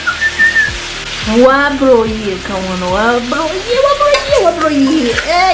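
Meat and chopped tomato stew sizzling in a metal pot as it is stirred with a spoon, under background music with a singing voice and a steady beat.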